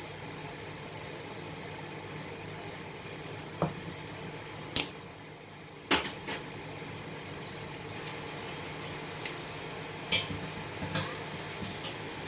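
A few sharp clinks and knocks of kitchenware being handled, spread out over a steady low background hum.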